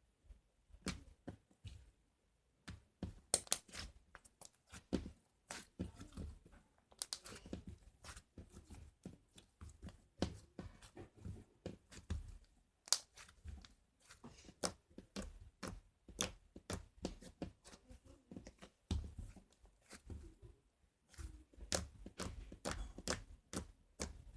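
Slime being squeezed and stretched by hand, giving an irregular run of sticky clicks and small pops, with a few short pauses.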